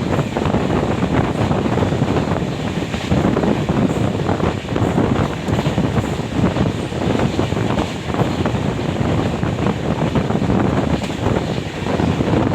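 Express train running past: a steady, loud rumble of wheels and coaches on the track, with wind buffeting the microphone.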